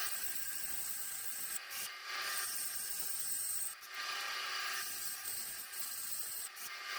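A tool working wood by hand as slots are cut into the rack's board, a steady scraping hiss in runs of about two seconds with short breaks between them.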